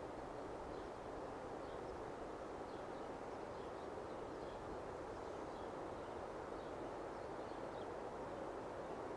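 Quiet outdoor ambience: a steady faint rushing hiss, with scattered faint high bird chirps about once or twice a second.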